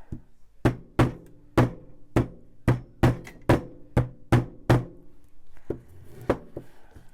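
A hammer beating a braid flat: about ten firm blows, roughly two a second, then a few lighter taps near the end.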